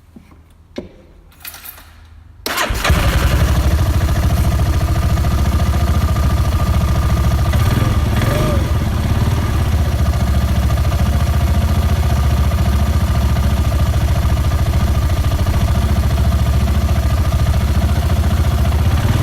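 Spy Racing 350 F1 engine being started: a few clicks, then the engine catches about two and a half seconds in and idles steadily.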